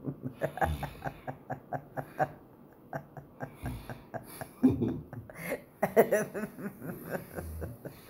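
Stifled laughter: a person giggling in quick short pulses, breaking off and starting again.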